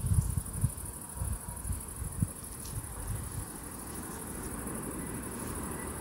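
Crickets chirring steadily in a high, finely pulsing chorus. Under it, low gusty rumbling from wind on the microphone is strongest in the first couple of seconds and settles into a steady low rumble.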